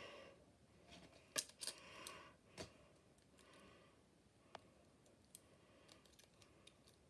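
Faint plastic clicks and snaps of a Bakugan Dragonoid ball figure being folded shut by hand: several sharp, scattered clicks, the loudest about a second and a half in.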